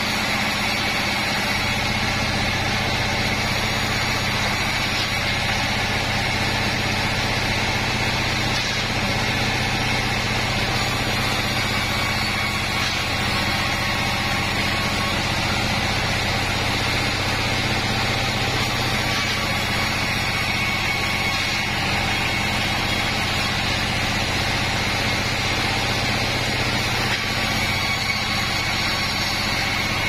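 Sawmill band saw running with a steady drone and a thin high whine, ripping wadang timber planks fed through the blade.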